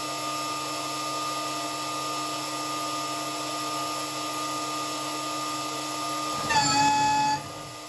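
Spinogy X22 CNC spindle, spinning at 17,500 RPM, milling with an end mill: a steady high-pitched machining whine. About six and a half seconds in, a louder, lower tone sounds for about a second, then the sound drops away.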